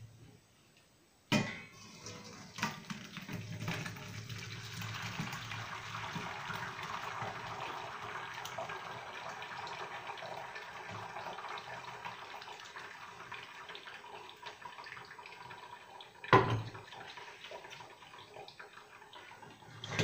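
Hot boiled black mulberry mash and juice poured from a steel pot into a metal strainer, a steady splashing pour of thick liquid. A sharp knock comes about a second in and another a few seconds before the end.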